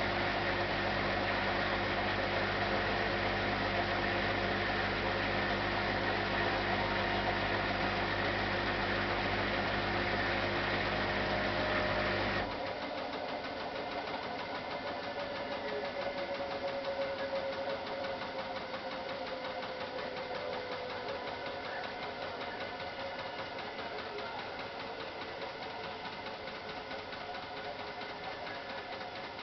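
Hotpoint NSWM 843C washing machine's inverter motor spinning the drum at high speed with a steady hum. About twelve seconds in, the motor sound cuts off suddenly and the drum coasts down with a slowly falling whine, marking the end of a spin.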